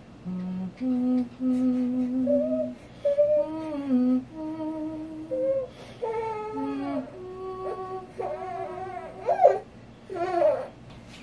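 A woman humming a soothing tune in long held notes to a fussy four-month-old baby. Over the second half the infant's wavering, whimpering cries break in, loudest about nine and a half seconds in.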